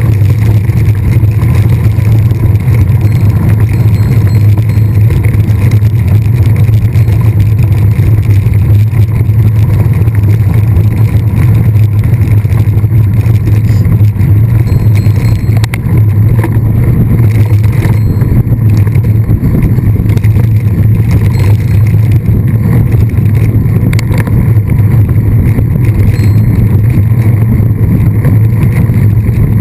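Loud, steady rumble of wind buffeting and rolling noise on the microphone of a camera riding along with a mountain bike during a race.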